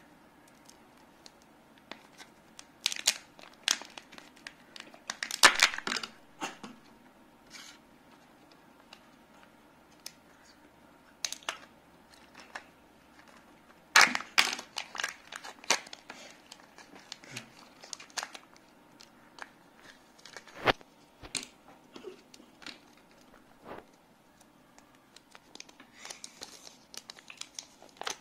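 Plastic and paper packaging of a Kinder Joy egg's toy being handled and opened by hand: scattered crinkling, tearing and sharp plastic clicks. The loudest bursts come about five and fourteen seconds in.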